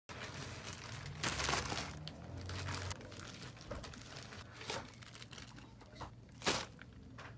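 Plastic courier mailer bags crinkling and rustling as parcels are set down and stacked on a desk. The loudest crinkle comes a little over a second in, and there is a short sharp one near the end.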